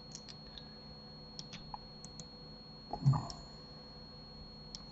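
Computer keyboard and mouse clicks: scattered single taps while shortcuts are used in a 3D modelling program. A brief low voice sound, a murmur, comes about three seconds in and is the loudest thing heard, over a faint steady high electrical whine.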